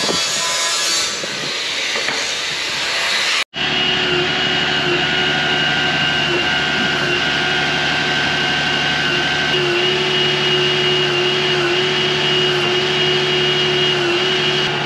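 Tire service truck's engine and equipment running steadily beside a tractor, a hum with a steady high whine that dips slightly now and then. Before it, about three and a half seconds of dense hissing noise cut off abruptly.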